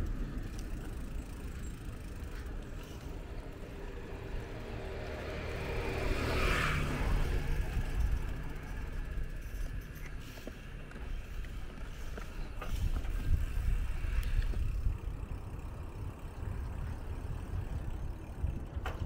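Wind rumbling on the microphone of a moving bicycle along a street, with a car passing close by about six to seven seconds in.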